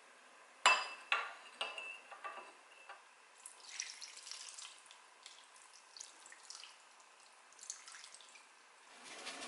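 Metal ladle clinking against a glass bowl about five times while stirring marinade, each clink ringing briefly. A little after the middle, the marinade is poured over boiled pork rib pieces with a short splashing wash, followed by a few soft wet sounds.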